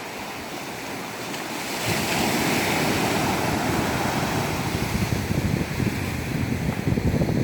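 Ocean waves washing in surf, a continuous rush that swells about two seconds in. Wind buffeting the microphone in gusts toward the end.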